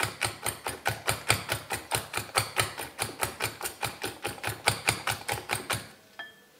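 Hand whisk beating egg whites and sugar in a glass bowl: a quick, even clicking of the whisk against the glass, about six strokes a second, stopping about a second before the end. The mix is being whipped until thick enough to hold a trail.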